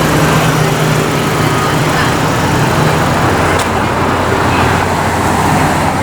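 City street traffic: a steady wash of passing vehicles with a low, even engine hum underneath, and a single short click about halfway through.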